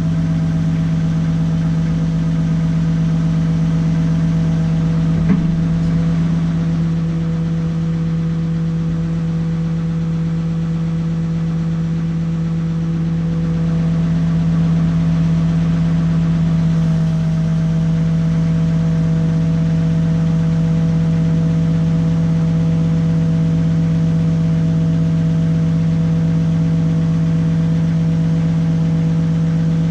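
Backhoe's diesel engine running at a steady speed while its boom carries a load, with one short knock about five seconds in.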